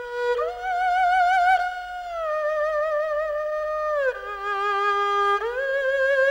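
Erhu played solo: a slow melody of long held notes with a wavering vibrato, sliding up and down from one note to the next.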